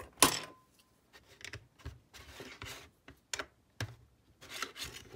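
LEGO bricks being pressed onto studs and handled: a string of short plastic clicks and clatters, the loudest just after the start.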